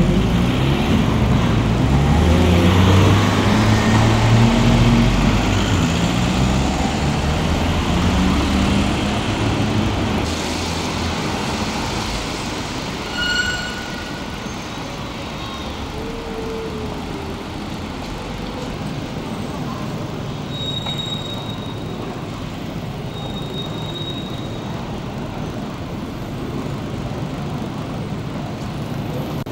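Street traffic noise: a motor vehicle's engine runs loudly for about the first ten seconds, its pitch stepping up and down, then fades into a quieter, steady street hum with a few brief high chirps.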